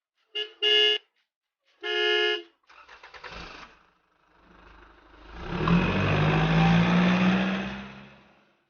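Truck horn honks twice in quick succession, then once longer. A truck engine then cranks briefly and starts, swelling up to run steadily before fading out near the end.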